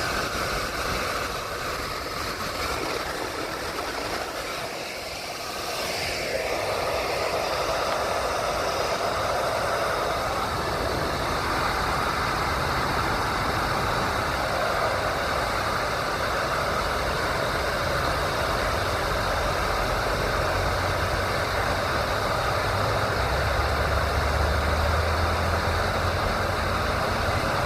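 Kenworth T800's Cat C15 inline-six diesel idling steadily while the cab's AC blower fan runs, blowing air now that a 30 amp breaker has replaced the blown fuse. A deeper low hum comes up over the last several seconds.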